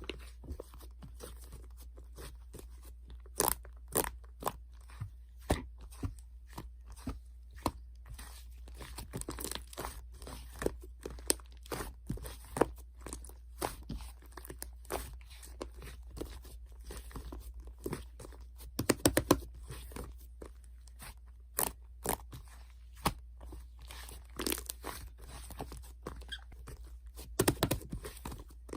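Slime being squeezed and poked by hand, making irregular sharp clicks and pops, with quick clusters of them a couple of times.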